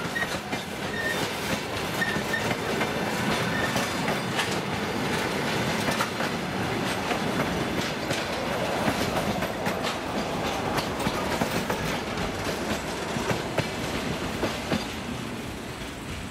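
Wagons of a departing work train rolling past, their wheels clattering over rail joints in a steady clickety-clack that fades away near the end as the last wagon goes by.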